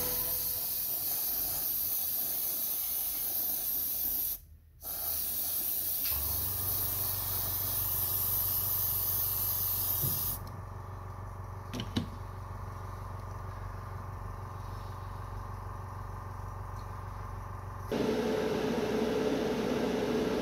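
Airbrush hissing steadily as it sprays paint, with a brief break about four and a half seconds in. About ten seconds in the spray hiss stops, leaving a low steady hum and a small click. Near the end a different steady hum with a clear tone takes over.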